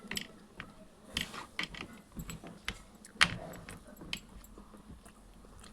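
Close-up eating sounds of egg and rice: chewing with scattered sharp clicks and clinks, the loudest a little after three seconds in.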